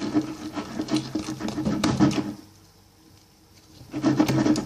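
Plastic spoon stirring sticky glue-and-borax slime in a bowl: fast, rhythmic scraping and clicking that stops about two and a half seconds in and starts again near the end.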